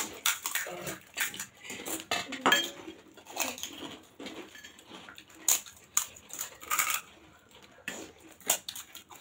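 Irregular clinks of stainless-steel plates and bowls, mixed with the crisp cracking of pani puri shells being broken open by hand and eating sounds.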